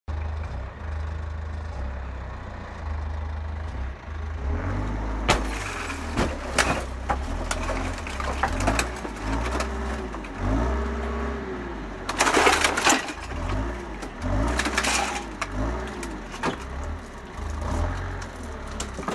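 A JCB forklift's engine running and revving up and down again and again as it works. Loud cracks and crunches of the car body breaking break in repeatedly from about five seconds in, and the biggest burst comes about two-thirds of the way through.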